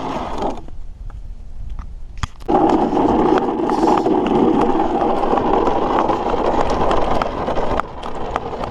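Toy truck rolling fast down a paved hill, a steady grinding rush from its plastic wheels with many small rattles and clicks. It starts about two and a half seconds in after a muffled lull and eases off near the end.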